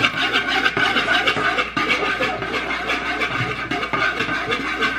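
A metal spoon stirring quickly around a plastic mixing bowl, a steady run of rapid scrapes against the bowl as dry yeast and sugar are mixed into warm water.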